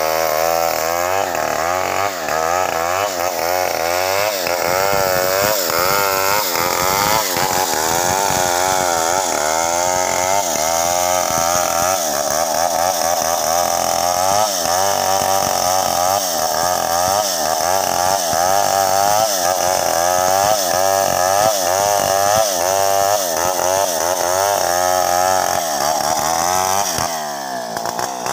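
Stihl 070 two-stroke chainsaw running at full throttle under load, ripping a log lengthwise into slabs, its pitch wavering up and down as the chain bites. Near the end it comes out of the cut and the sound drops.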